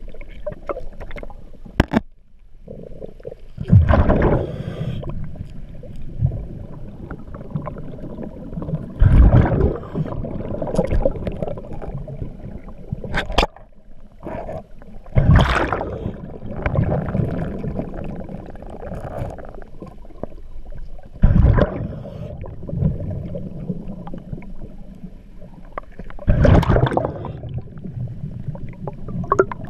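Underwater, a diver breathing through a regulator: a loud rush of exhaled bubbles about every five to six seconds, with a quieter rumble and gurgling between.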